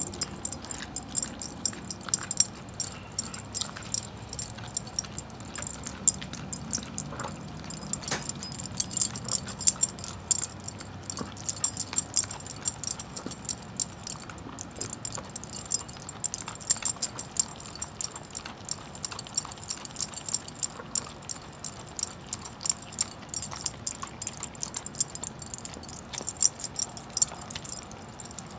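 Greyhound gnawing and crunching a raw turkey leg, with the metal tags on its collar jingling in quick, irregular clicks as its jaws work.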